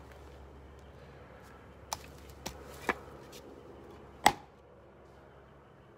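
A few light knocks, then one sharp, much louder knock a little after four seconds in, as the axe and chopping block are handled.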